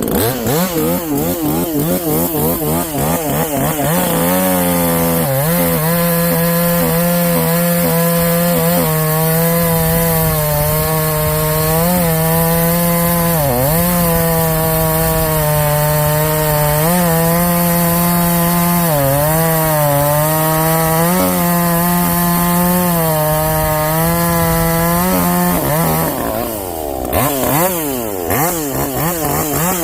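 Muffler-modded Harbor Freight Portland chainsaw blipping the throttle, then cutting through an oak log at full throttle for about twenty seconds, the engine note dipping briefly now and then as the chain loads. Near the end it revs free out of the cut and then settles into another cut.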